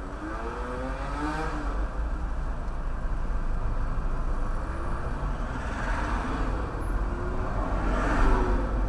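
Car engine heard from inside the cabin, its note rising as the car pulls away from a stop, then rising twice more later, over a steady low road rumble. The whole sound is dull and muffled, as picked up by a windscreen-mounted dash cam.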